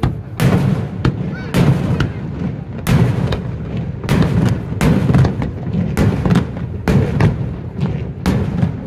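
Aerial firework shells bursting in quick succession. Sharp bangs come about one or two a second, each trailing off briefly.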